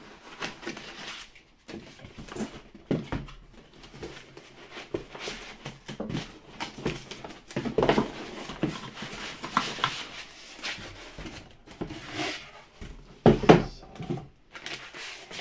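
Cardboard box and black foam packing blocks being handled and pulled apart, foam rubbing against foam and cardboard in irregular scrapes and rustles. The loudest scrapes come about eight seconds in and again near the end.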